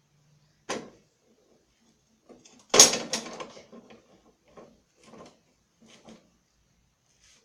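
A series of knocks and clatters as lawn-mower parts and tools are handled: a sharp knock about a second in, a loud clattering cluster about three seconds in, then several smaller knocks.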